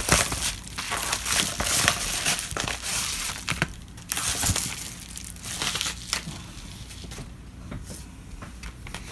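Crinkling, crumpling and tearing of a taped, stapled mailing package being pulled open by hand, with a few sharp clicks. The rustling is busiest for about the first four seconds, then thins out to quieter, occasional handling noises.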